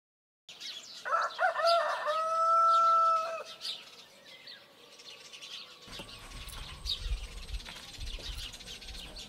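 A rooster crowing once, a broken start leading into one long held note that drops off at the end, with small birds chirping. From about six seconds in, a low rumbling background takes over.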